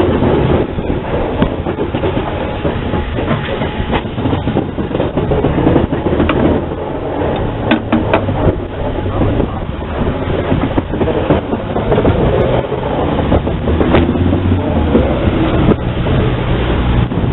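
0-8-0 steam tank locomotive running, heard from its cab, with the wheels clicking now and then over rail joints.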